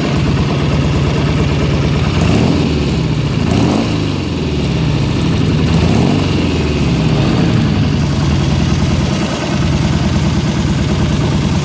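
1971 Triumph T120RV Bonneville's 650 cc parallel-twin engine idling, with the throttle blipped twice, the revs rising and falling about four and six seconds in.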